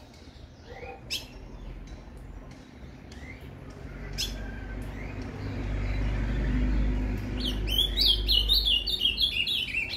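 Male ultramarine grosbeak (azulão) giving a few sharp single chirps, then near the end a quick song phrase of clear notes stepping downward, in the Paraná song style. A low rumble swells in the middle.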